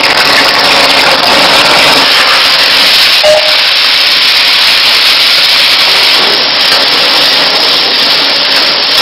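Prawns frying in hot oil in an aluminium kadai: a loud, steady sizzle.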